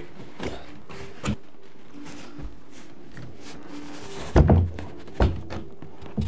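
Pre-hung interior door being lifted and carried, its wooden jamb and slab knocking and bumping: a couple of light knocks early, then a cluster of heavier thumps a little past the middle.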